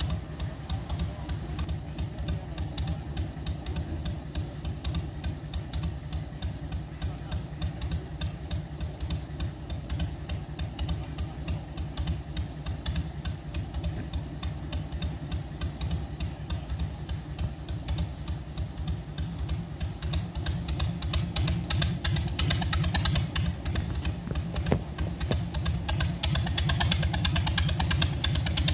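Small narrow-gauge diesel locomotive's engine idling with a rapid, regular knocking beat. It grows louder and harsher over the last third.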